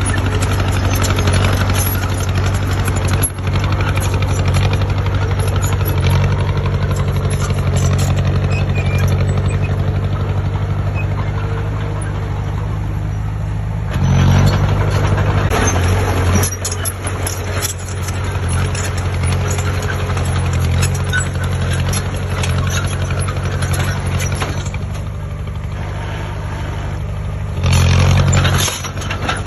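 Heavy diesel engine of a construction machine running steadily under load, with the revs rising twice: once about halfway through for a couple of seconds and again briefly near the end.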